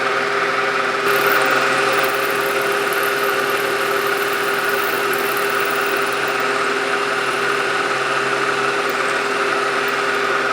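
Hendey tool-and-gear lathe running steadily under power, a continuous machine hum with several steady tones and a brief rise in hiss about a second in.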